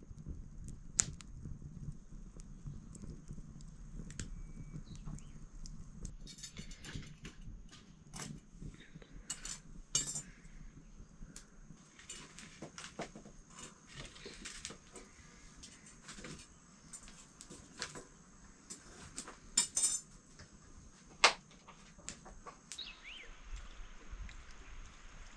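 Metal cookware being handled while cooking: pots and utensils clinking, knocking and scraping at irregular moments. The sharpest clink comes near the end.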